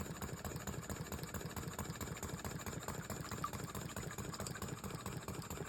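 Tiny Power model steam engine running steadily, its rapid, even beats driving a small toy water pump.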